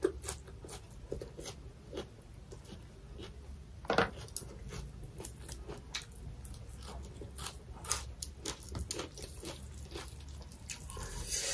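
Close-up chewing and crunching of fresh raw coriander leaves and stems, with many quick mouth clicks and one louder crunch about four seconds in.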